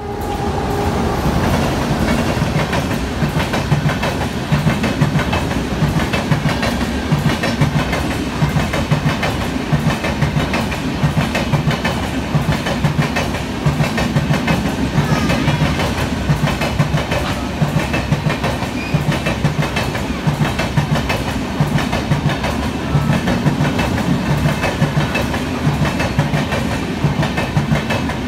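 Coaches of an express passenger train running past at speed, wheels clattering over rail joints in a fast, steady clickety-clack.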